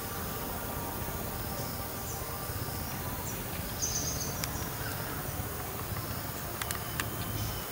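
Outdoor scrub-forest ambience: a steady hum of insects with scattered short, high chirps. A few sharp clicks come about seven seconds in.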